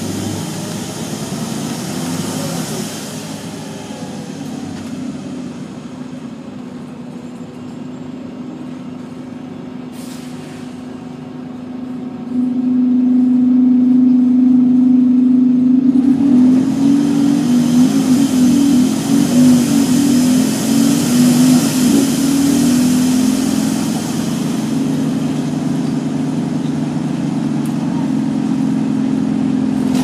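Interior drone of a Wright Volvo Urban Eclipse bus (Volvo B7RLE) on the move: engine and cooling fan make a steady low hum that steps up suddenly and stays much louder from about twelve seconds in, with a hiss over it for several seconds after that.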